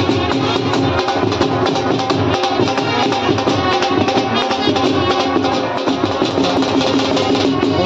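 A brass band playing dance music, with trumpets over a steadily beating drum.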